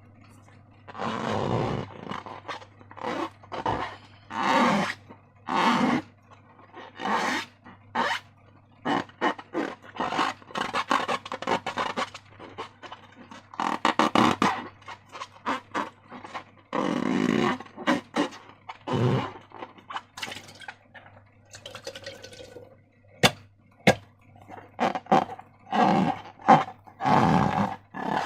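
Slime being squeezed and worked by hand with rubber balloons: irregular wet squelching and rubbing, with two sharp clicks about two-thirds of the way in. A steady low hum runs underneath.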